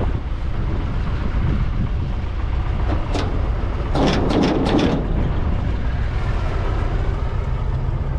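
Tractor engine running steadily as the machine drives, with a few clattering knocks and rattles about three to five seconds in.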